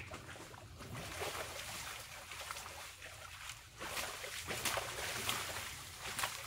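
Wild boar splashing and sloshing in shallow muddy water at a wallow, an uneven run of splashes that is busiest near the end.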